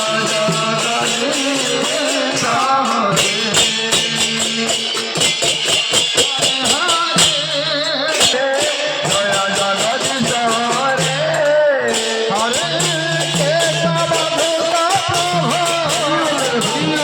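Devotional aarti music for Lakshmi Puja: a wavering sung melody over fast, steady rattling and jingling percussion.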